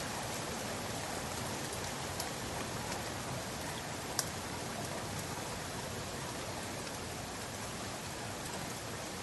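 Steady rain falling in an even hiss, with a few sharper drops ticking through it, one more distinct about four seconds in.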